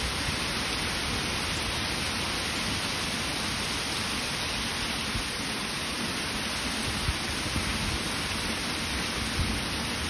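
Heavy rain pouring steadily, a dense even hiss, with a few brief low thumps here and there.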